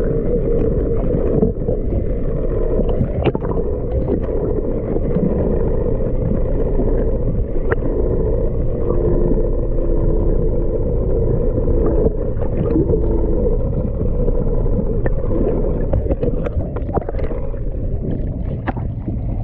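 Muffled, steady underwater rushing and rumble of water against a camera's waterproof housing as it is drawn up through the sea, with a low hum running beneath it.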